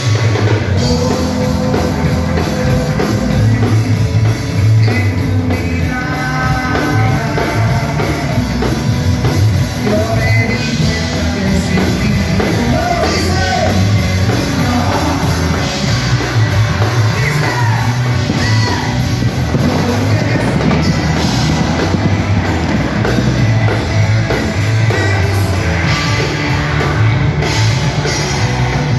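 Live rock band playing loud: electric guitar, drum kit and bass, with a lead singer's vocal over the band.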